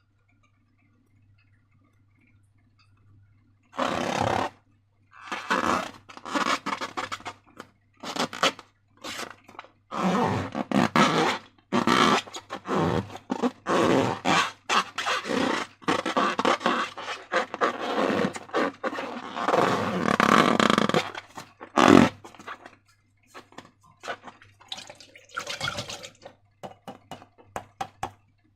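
Slime squished and worked by hand, a run of irregular wet squelches and crackles that starts about four seconds in and thins out near the end.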